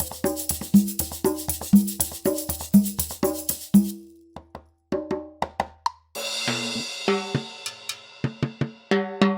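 Programmed drum and percussion patterns from the Groove Agent 5 virtual drum instrument. A steady groove of pitched percussion hits over a low hum stops about four seconds in. A few scattered hits follow, then a new pattern starts about six seconds in with a cymbal wash and pitched hits.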